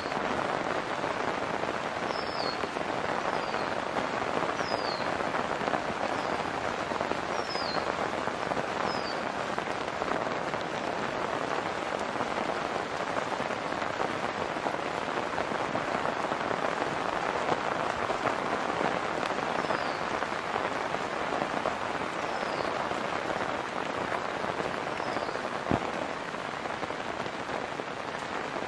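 Steady monsoon rain falling on a wet paved lane and the walls and trees beside it, a continuous even hiss. Short high falling chirps cut through now and then: a run of them in the first ten seconds and a few more later.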